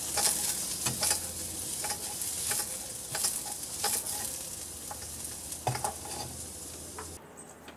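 Pork sizzling in a frying pan over a wood fire, with repeated short clatters as the pan is tossed and the meat flipped. The sizzle cuts off suddenly near the end.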